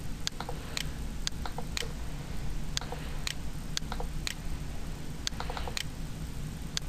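Computer mouse and keyboard clicks, a series of short sharp clicks about two a second, over the low hum of the computer.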